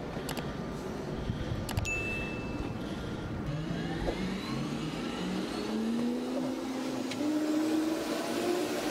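Wind noise on the microphone with a few sharp clicks. Then, from about three and a half seconds in, a helicopter's turbine engines spool up, a whine that rises steadily in pitch.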